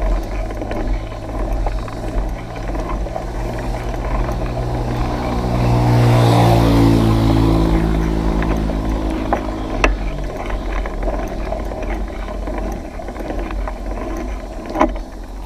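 A motor vehicle's engine passes by, swelling up midway and fading out after a few seconds, over a steady low wind rumble on the microphone of a moving bicycle. A couple of sharp knocks, one near the end.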